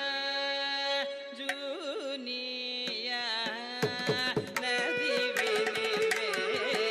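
Carnatic music from a voice, violin, harmonica and mridangam ensemble. A sustained melodic line with wavering, sliding ornaments runs over a steady drone, and sharp mridangam strokes come in about four seconds in.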